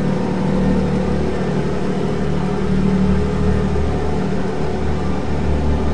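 Lamborghini Revuelto's 6.5-litre V12 engine running steadily, with slight swells in level but no sharp revving.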